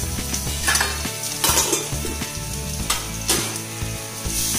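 Grated ginger and green chilies sizzling in hot oil with ground spices, stirred in the pan with several short scraping strokes.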